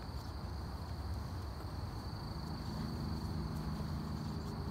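Quiet marsh ambience: a steady high insect trill over a low rumble. A faint low hum comes in about halfway through.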